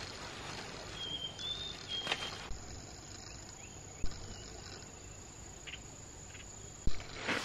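Insects, crickets by their steady high trill, chirping throughout, with a few short high whistles about a second in and two sharp knocks, the louder one near the end.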